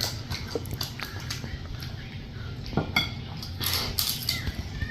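Forks and spoons clinking and scraping against plates in irregular clicks, the loudest around three and four seconds in.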